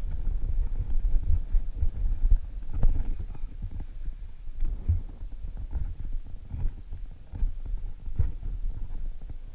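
Mountain bike ridden fast over a rough dirt trail, heard through a helmet-mounted action camera: a low, uneven rumble of wind buffeting and trail vibration, with irregular knocks as the bike jolts over bumps and roots.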